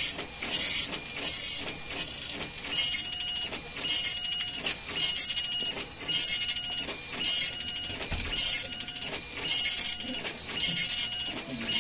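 Compuprint 3056 dot matrix printer printing its settings page: the print head buzzes across the paper in repeated passes, about two a second at first, then about one a second with a short rattle between passes.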